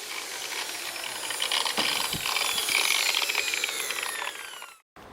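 9-inch angle grinder with an abrasive cutting wheel cutting through a car's sheet-metal roof: a loud hissing grind with a whine that falls slowly in pitch as the wheel slows under load. It cuts off abruptly near the end.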